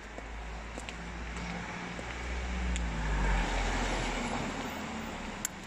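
A motor vehicle drives past on the street, its engine hum and tyre noise building to a peak about three seconds in and then fading away.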